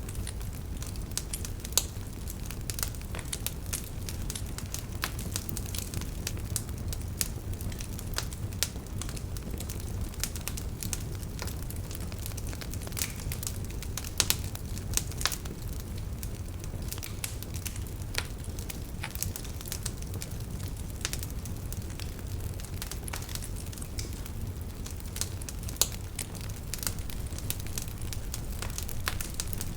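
Wood fire crackling in a fireplace: a steady low rumble of flame with frequent sharp pops and snaps scattered irregularly throughout.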